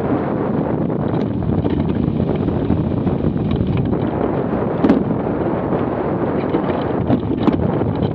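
Wind rushing over the microphone of a hang glider's wing-mounted camera in flight, a steady low buffeting. A couple of brief sharp knocks stand out, one about five seconds in and another near the end.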